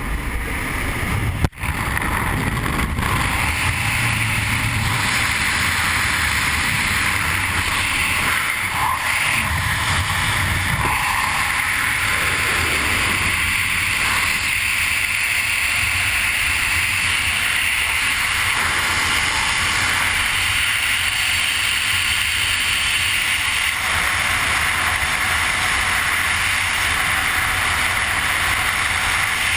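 Skydiving freefall wind rushing over the camera's microphone: a steady, loud roar with a low rumble, broken by one brief dropout about a second and a half in.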